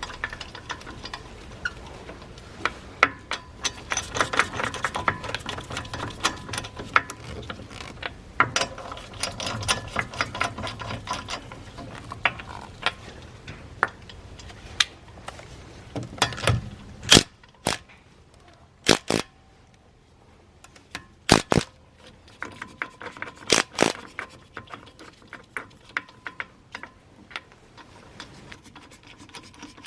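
Metallic clinks and clicks of tools and parts being handled during a wheel change, scattered sharp knocks standing out. A low steady hum runs under the first half and stops about two-thirds of the way in.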